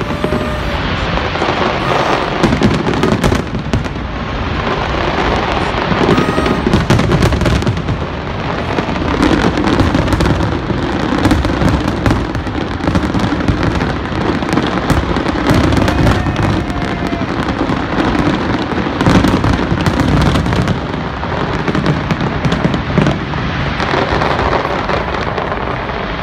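Aerial fireworks bursting in a dense, continuous barrage: many overlapping bangs and crackles with no break between them.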